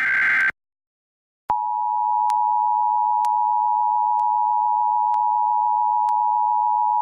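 Emergency Alert System broadcast: the tail of a SAME header data burst, a short screechy digital chirp, ends about half a second in, and after a second of silence the EAS two-tone attention signal (853 and 960 Hz together) starts and holds steady and loud.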